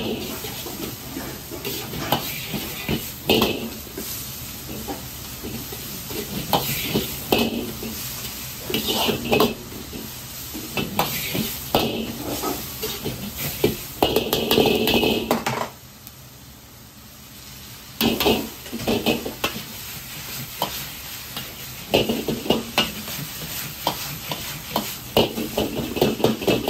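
Metal ladle clanking and scraping against a wok as shredded ginger and chicken pieces are stir-fried and tossed, over a steady sizzle. The clanks come in quick runs, with a short quieter lull a little past the middle.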